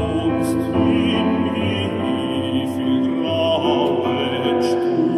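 Operatic baritone singing a slow, sustained line with piano accompaniment, holding a long note with vibrato in the second half.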